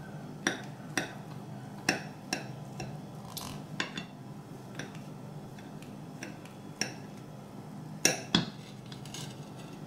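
Knife cutting a soft baked clafoutis, its blade clicking and tapping against the serving plate about ten times at uneven intervals, with the two loudest clicks close together about eight seconds in.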